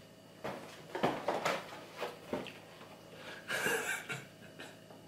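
Quiet rustling and light taps of food packaging being handled at a table: a plastic bag crinkling and a cardboard cereal box being picked up and moved. There is a longer crinkle a little past halfway.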